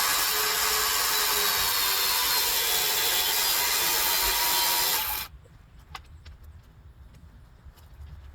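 Circular saw ripping a board lengthwise, running steadily through the cut, then stopping abruptly about five seconds in. A few faint clicks follow.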